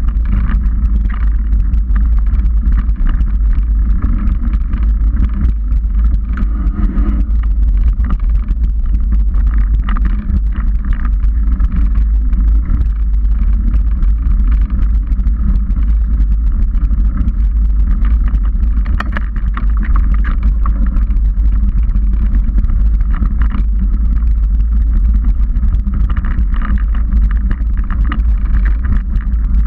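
Steady low rumble of wind and vibration on a GoPro riding on a Trek 29er mountain bike as it rolls over a rocky dirt trail, with tyre crunch and scattered clicks and rattles from the bike.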